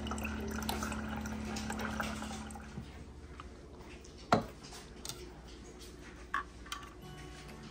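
Countertop water dispenser running with a steady hum as water pours into a tumbler, stopping about three seconds in. Then a sharp knock as the tumbler is set down on the counter, followed by a few light clicks as a straw goes into it.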